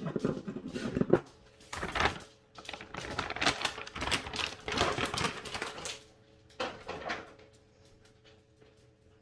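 A measuring cup scooping and scraping baking soda, with quick clicks, taps and scrapes for about six seconds and one more short scrape a second later.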